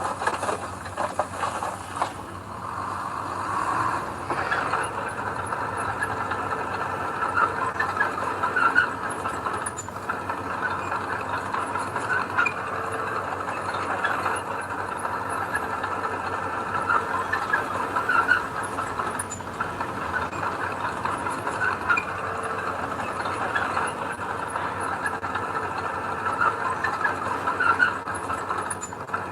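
Earthmoving machine working: a diesel engine running steadily under a dense, continuous rattle of small metallic knocks.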